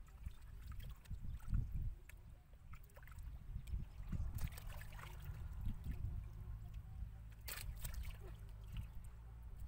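Hands sloshing and splashing in shallow muddy water while groping for fish, with irregular splashes and drips, the loudest about halfway and near the end. A low steady rumble runs underneath.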